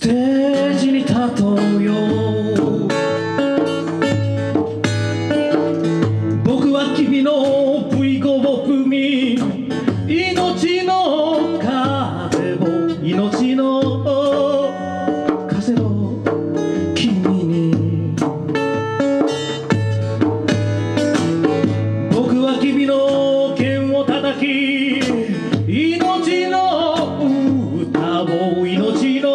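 A man singing a Japanese folk-blues song to his own acoustic guitar, with a djembe played by hand alongside.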